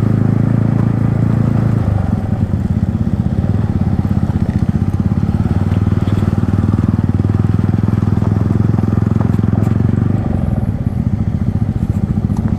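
Yamaha MT-15's single-cylinder engine through an Akrapovic exhaust, running at low revs with a fast, even pulsing beat. The note eases off about ten seconds in and picks up again near the end.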